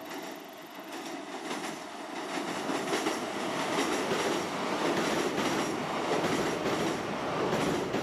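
Kintetsu Minami-Osaka Line electric train crossing a steel girder bridge: a rumble of wheels on the rails with rapid clacking over the rail joints, growing louder about three seconds in.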